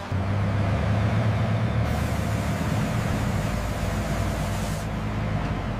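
Battle tank's engine running at rest with a steady low rumble. A hiss joins in about two seconds in and stops about three seconds later.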